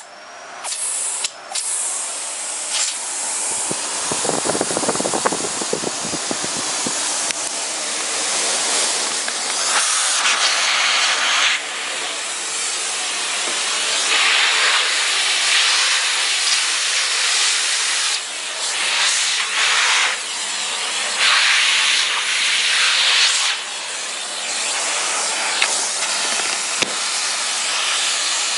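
Electrolux Ultra Silencer Green ZUSG3000 canister vacuum cleaner running, a steady rushing hiss of suction and motor. The hiss swells and fades every few seconds as the floor nozzle is pushed over a wooden floor and around chair legs. There is a rougher, lower stretch about four to seven seconds in.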